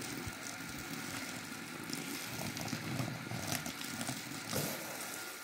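Water from a garden hose spraying and splashing onto a sheet of old linoleum, with a brush scrubbing the wet surface.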